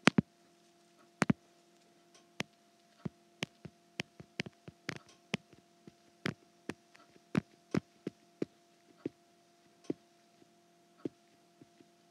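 Stylus tapping and clicking on an iPad's glass screen while handwriting, with about twenty sharp clicks at an uneven pace; the two loudest come within the first second and a half. A faint steady hum runs underneath.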